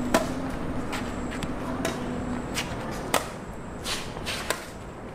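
Badminton rally: rackets striking a shuttlecock in a string of sharp hits, roughly a second apart, the loudest about three seconds in, with shuffling footsteps on the court.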